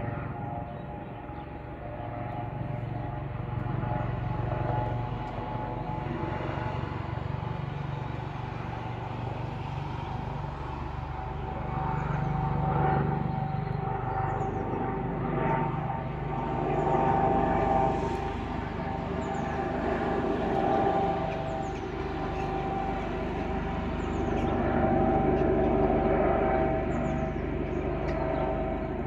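Rescue helicopter flying overhead on its landing approach: a steady drone of turbine and rotor that swells and fades in waves as it passes.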